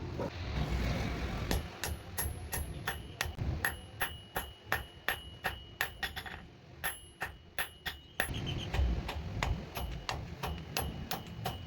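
Blacksmith's hammer striking iron on an anvil in quick, even blows, two to three a second, each with a bright metallic ring. The blows pause briefly near the middle, and a low rumble sits under them at the start and in the second half.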